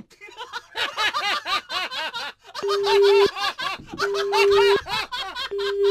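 Several men laughing hard in quick ha-ha bursts. Three steady electronic beeps, evenly spaced, sound over the laughter in the second half.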